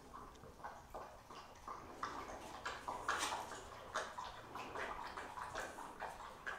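A dog drinking from a bowl, lapping water in quick repeated laps, a few a second.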